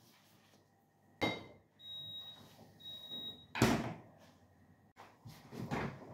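Refrigerator door being shut and opened again: a click about a second in, two short high tones, then the door closing with a thud a little past halfway, and softer knocks as it is pulled open near the end.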